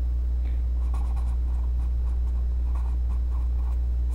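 Felt-tip marker writing on paper: a run of short, faint scratching strokes as a word is written out, over a steady low hum.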